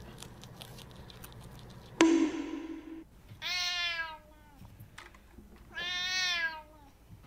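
A cat meowing twice, each meow long and drawn out, as a hand passes over its head. A sudden noise about two seconds in fades away over a second.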